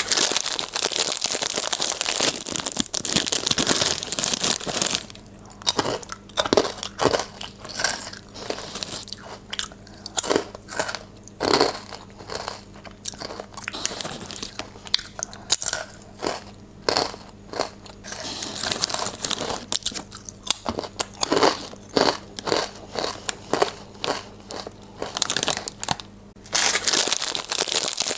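Potato chips being bitten and chewed: many separate crisp crunches at irregular intervals. A crinkling chip packet is handled for the first few seconds and again near the end.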